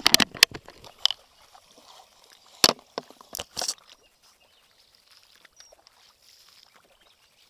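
Short, sharp splashes in shallow floodwater: a quick cluster in the first second, then three more about three seconds in, followed by faint water sounds.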